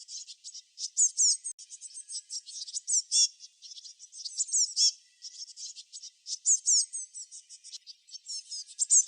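Songbirds chirping: rapid, high-pitched chirps and quick sweeping notes in repeated bursts with short pauses between them.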